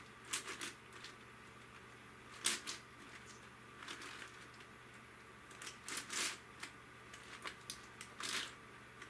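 Yuxin Huanglong 17x17 magnetic puzzle cube being turned by hand: irregular spurts of clacking and scraping as its layers turn, with short pauses between turns.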